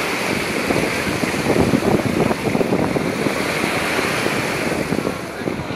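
Small waves washing and breaking at the shoreline, a steady rushing surf that swells about two seconds in, with wind buffeting the microphone.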